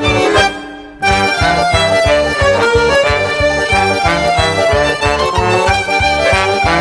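Instrumental music led by an accordion over a steady bass beat. About half a second in it fades out briefly, then starts again a second in.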